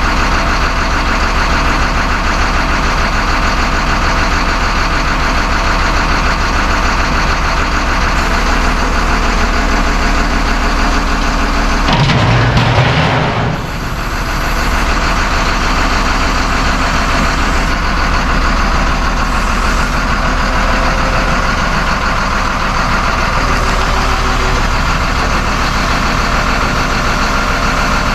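Plasma cutter cutting through the steel truck body: a loud, steady hiss, with an engine running under it in an even pulse. About twelve seconds in there is a brief louder surge and a short dip, then the steady sound carries on.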